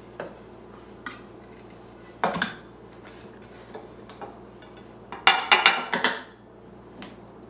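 Bowl and plate knocking and clattering as a microwaved monkey bread is turned out of its bowl onto a plate: a few single knocks, then a quick run of rattling clatters about five seconds in.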